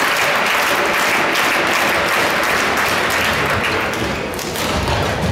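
Crowd applauding, the clapping fading away toward the end.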